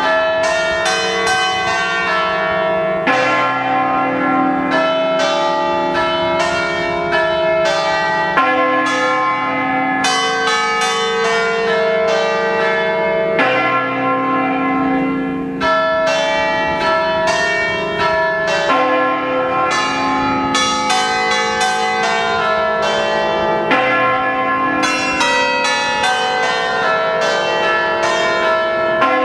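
Church bells from a set of eight bells in C cast by Pasquale Mazzola in 1879, struck in quick runs of notes that form a melody. The runs are separated by short breaks, and the bells keep ringing on between strokes.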